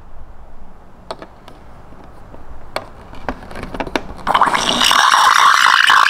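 Steam wand of a Petrus PE3320 espresso machine frothing milk in a stainless steel pitcher, its big frothing tip removed: a few sharp clicks, then about four seconds in a sudden loud hiss of steam into the milk that carries on.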